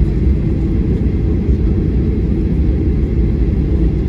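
Steady low rumble of a Boeing 737-800 airliner heard from inside the cabin, even and unbroken.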